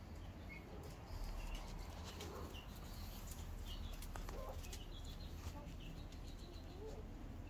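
Backyard chickens clucking softly while they forage, with short high chirps scattered throughout, over a steady low rumble.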